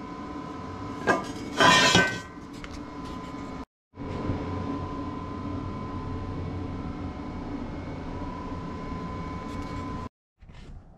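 A welded steel square-tube frame clanks against a steel welding table, a sharp metallic clank with a brief ring about a second and a half in. After it comes a steady background hum with a faint high tone.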